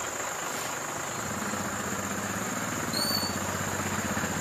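A heavy engine idling, growing louder after about a second, with one short high chirp about three seconds in.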